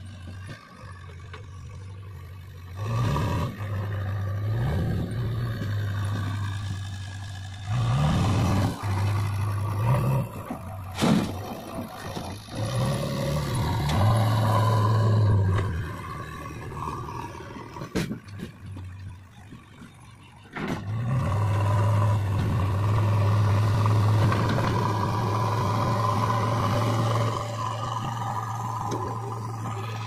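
JCB 3DX backhoe loader's diesel engine working under load, its revs surging up and dropping back several times as the front loader bucket pushes and lifts soil, with a few sharp clanks.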